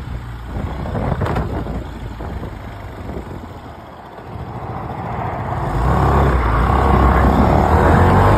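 GTR125 motorcycle running, getting louder about five seconds in as its engine note rises.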